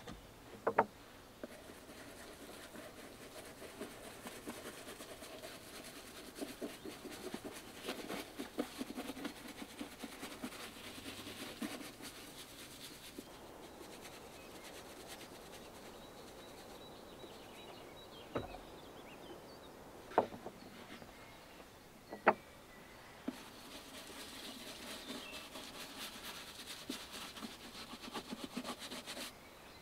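Leather boots being polished by hand, with steady rubbing strokes over the leather and a few sharp knocks.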